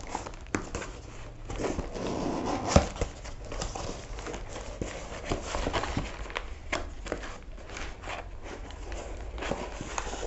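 Cardboard shipping box being opened by hand: flaps and packing rustling and scraping, with scattered clicks and one sharp tap a little under three seconds in.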